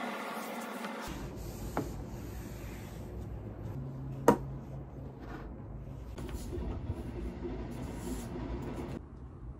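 Objects being handled and set down on a desk: a light tap a couple of seconds in, then one sharp knock about four seconds in as something is put down on the hard desktop, over a low steady room rumble.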